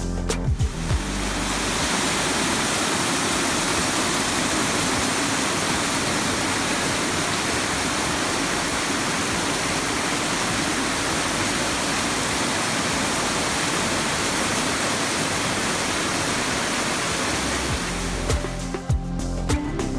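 Steady rush of falling water from Peavine Falls waterfall, an even noise that holds for most of the stretch. Background music is heard in the first second and fades back in near the end.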